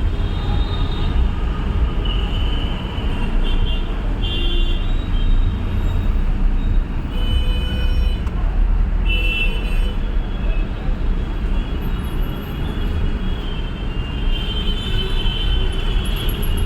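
Slow, heavy road traffic: a steady low rumble of engines and road noise, with other vehicles' horns tooting briefly several times.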